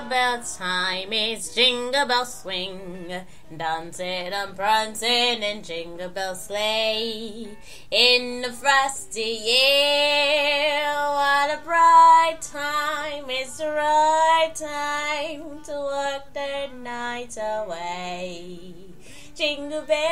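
A woman singing a melody, with vibrato on held notes and a long sustained note about halfway through.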